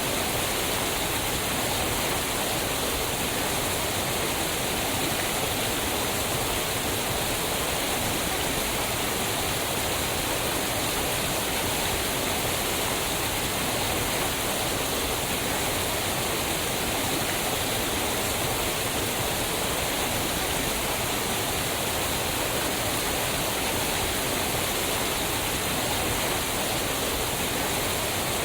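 Waterfall: fast-moving water pouring over rocks with a steady, even rush.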